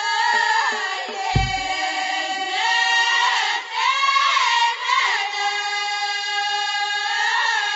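Amazigh ahwach group song: a chorus of voices singing together in sliding, ornamented lines, with one deep drum stroke about a second and a half in. From about five seconds the chorus holds a long, steady note.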